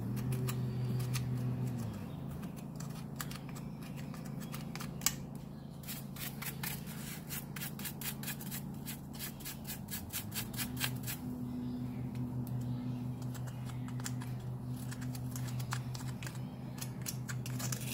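Hoof pick and its stiff brush scraping and rubbing across the sole of a horse's shod, padded hoof in quick repeated strokes, with one sharp click about five seconds in. A steady low hum runs underneath.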